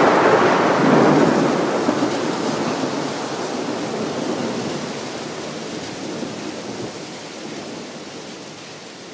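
Thunderstorm sound effect: a steady hiss of rain with thunder rumbling at first, fading out gradually.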